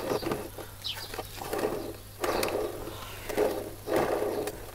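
White plastic toothed belt pulley of a Bosch Rotak 32 mower being pushed onto its shaft and spun by hand on its freshly greased bearing. It makes several short rough rubbing, whirring sounds with a few clicks.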